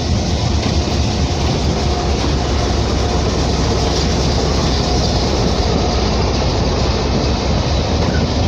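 Pakistan Railways GMU-15 diesel-electric locomotive passing close by, its engine and wheels on the rails making a steady heavy rumble.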